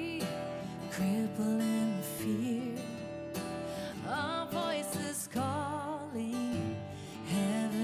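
A worship song: a voice singing with vibrato over acoustic guitar.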